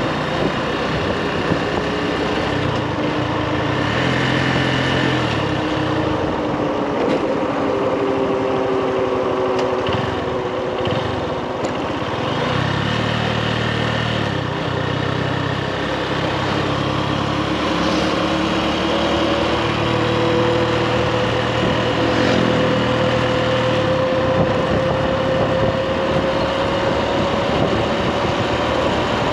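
Motorbike engine running while riding, its pitch slowly rising and falling with the throttle, over a steady rush of wind.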